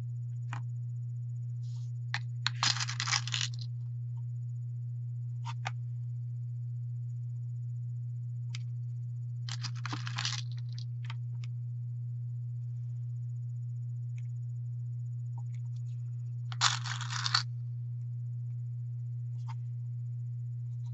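Fingers picking small beads out of a plastic compartment bead box: three short rattling scrapes of about a second each, with a few light clicks, over a steady low hum.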